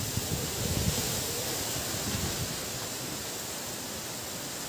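Heavy rain falling as a steady hiss, with a low rumble in the first couple of seconds that fades away.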